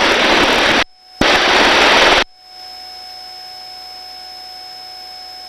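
Loud, steady rush of helicopter noise carried through an open intercom microphone. It cuts out abruptly just under a second in, comes back for about a second, then cuts off again, leaving a faint steady electronic hum with a few thin tones.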